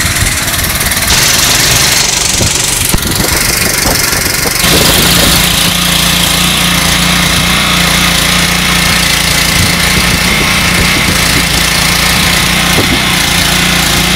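Small 2.5 hp petrol engine of a pressure washer running steadily under load, with the hiss of the water jet from the lance. The engine note shifts about four and a half seconds in and settles into a steadier hum.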